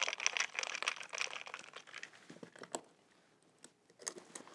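Ice being shaken hard in a cocktail shaker, a rapid dense rattle that fades out about two to three seconds in, followed by a few light knocks.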